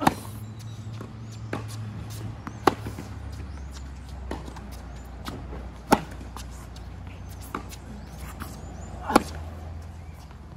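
Tennis rally on a hard court: sharp pops of the racket hitting the ball, the loudest about every three seconds, with fainter hits and ball bounces in between.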